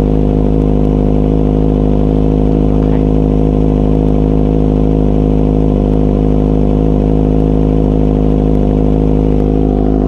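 Kawasaki Ninja ZX-25R's 249 cc inline-four idling steadily at about 2,000 rpm through an aftermarket Orion muffler, which is welded onto the stock catalytic section rather than being a full system. The engine is warm, at 83 degrees.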